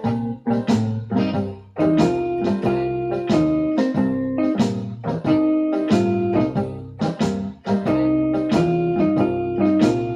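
Blues played on an electronic keyboard with a piano sound: rhythmic chords struck about twice a second over a held bass line.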